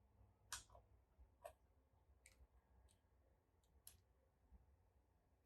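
Near silence with a few faint, sharp clicks, about four spread over a few seconds, from a Minolta Dynax 500si SLR camera body being handled.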